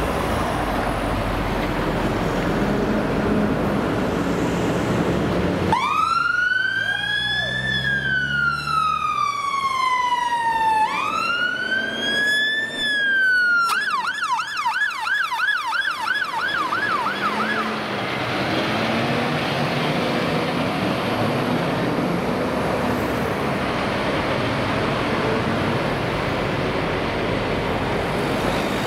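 Fire engine's electronic siren starting up with two slow rising-and-falling wails, then switching to a fast yelp for a few seconds before cutting off. Steady road and engine noise runs before and after it.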